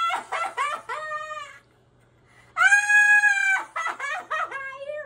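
A woman shrieking and laughing with joy in short high-pitched bursts. After a brief pause she gives one long held scream, then breaks back into laughing shrieks.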